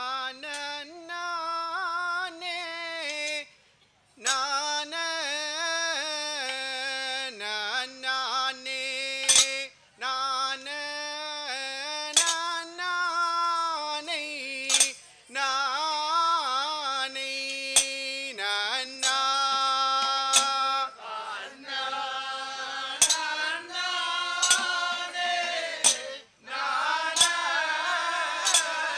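Men singing a Kanniyarkali ritual song together, long held notes that bend and break off with short pauses. About seven sharp metallic clinks sound over it, most of them in the second half.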